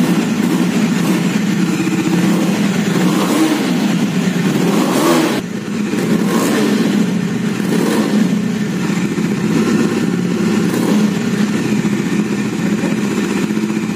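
Bajaj Dominar 400 BS6's single-cylinder engine running through its twin-barrel exhaust, with the revs raised by the throttle. One longer rev builds a few seconds in and drops off sharply. Several shorter throttle blips follow.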